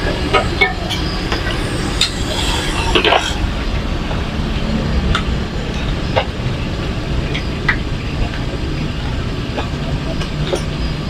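A metal spatula scrapes and taps against a wide, oiled flat frying pan of frying martabak for the first three seconds or so, over a steady low rumble. Scattered light clicks follow.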